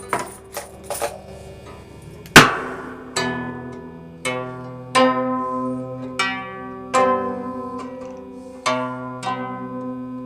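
Slow plucked-string music on a zither-type instrument: single notes and chords struck about once a second, each ringing out and fading. A sharp, loud pluck about two and a half seconds in stands out above the rest.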